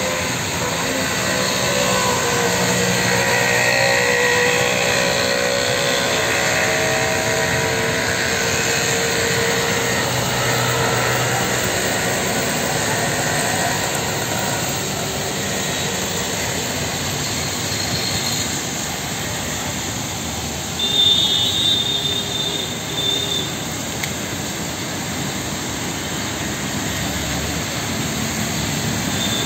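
Heavy rain pouring onto a city street with a steady hiss, while traffic, auto-rickshaws among it, runs through the wet road, engines rising and falling as vehicles pass. A short high beep sounds about two-thirds of the way through.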